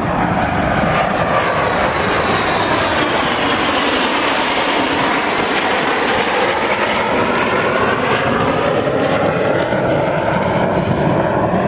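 Red Arrows BAE Hawk T1 jets flying past low, their Adour turbofan engines making a loud, steady rush of jet noise. The tone of the noise sweeps down and then back up as they pass.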